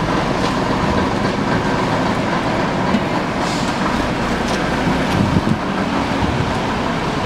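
Diesel engine of a Southend Transport coach running as the coach pulls away and drives off, with tyre hiss on the wet road.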